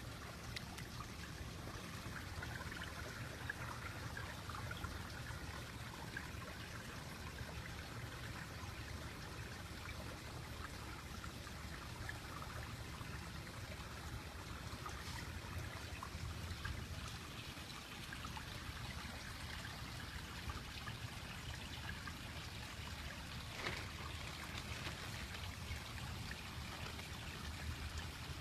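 Pond water running and trickling steadily, with a few faint clicks.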